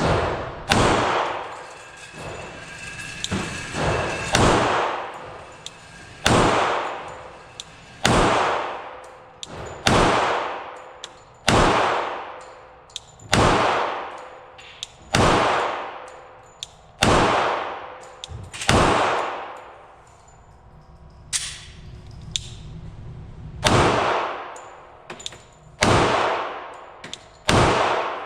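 Glock .45 ACP pistol firing deliberate single shots, about one every one and a half to two seconds, each shot ringing out with a long echoing tail. There is a pause of about five seconds past the middle before the firing resumes.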